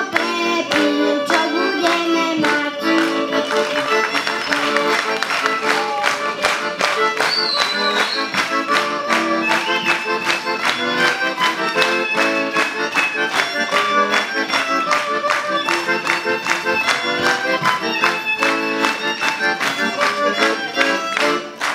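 Piano accordion and violin playing a Slovak folk song together, with the accordion keeping a brisk, regular beat under the melody.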